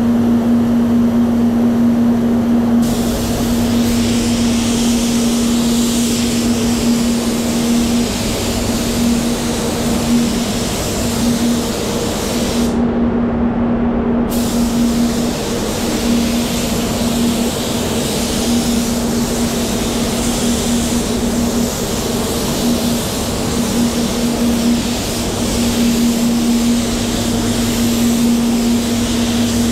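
Spray gun hissing as it sprays water-based base coat, starting about three seconds in and cut off briefly near the middle as the trigger is released, over the steady hum of the spray booth's extraction fans.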